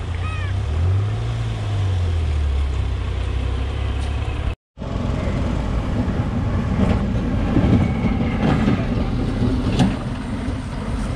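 A heavily loaded lorry's diesel engine running under load as it comes round a hairpin bend, with a few sharp clanks and rattles from the truck. Before it, about halfway in, a lower vehicle engine drone shifts in pitch and then cuts off abruptly.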